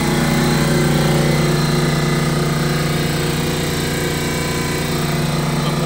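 Fortress 27-gallon, 200 PSI air compressor running steadily, an even mechanical hum as it pumps up the tank.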